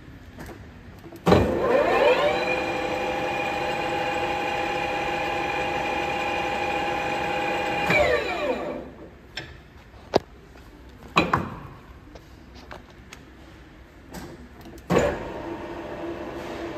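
Bells Blue Line AL-6A-85 six-shaku engine lathe, built 1987, starting its spindle: the headstock gearing comes up to speed with a rising whine and runs steadily with its three-jaw chuck spinning, then coasts down and stops about eight seconds in. After a few sharp clicks and knocks it starts again suddenly and runs at a different pitch, at another spindle speed.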